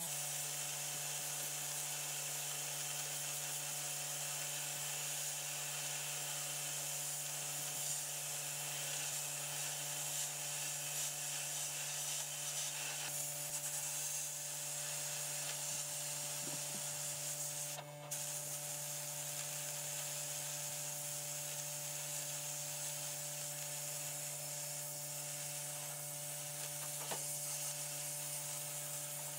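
A small power tool running at a steady speed with a continuous rubbing, grinding sound, as in abrasive work on a restoration. There is a brief break a little past halfway.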